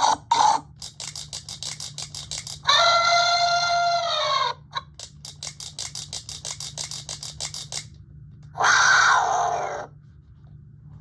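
Electronic sound effects from a Power Rangers Beast Hunters cube zord toy: runs of rapid clicking, about seven a second, broken by a two-second pitched electronic call about three seconds in and a loud noisy blast about eight and a half seconds in.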